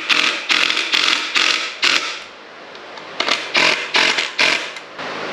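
Cedar swing parts and hand tools scraping and knocking while the swing kit is assembled: a run of short, noisy strokes, about two a second, with a pause of about a second near the middle.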